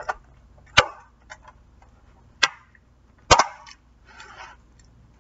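Plastic takeout food containers being handled: three sharp clicks, the first two about a second and a half apart, with smaller ticks and a brief rustle near the end.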